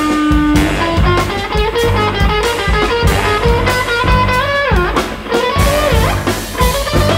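Jazz ensemble playing live: electric guitar to the fore over drum kit and bass, with saxophones, trumpet and trombone in the band. A melodic line bends down and back up about five seconds in.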